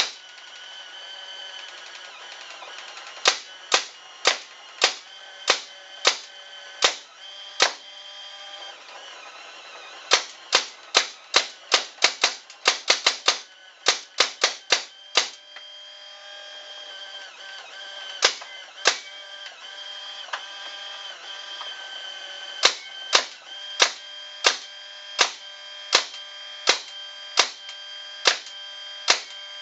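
Tippmann Alpha Black paintball marker firing reusable rubber reballs fed from a ViewLoader Force electronic hopper. Single sharp shots are spaced a second or so apart, with a fast string of about a dozen shots in quick succession about ten seconds in and a pause of several seconds after it. A steady whine sounds under the shots, and the marker feeds without jamming.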